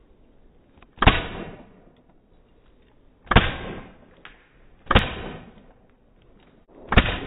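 Empire D*Fender paintball marker firing four single shots, spaced about one and a half to two seconds apart, each a sharp crack with a short fading tail.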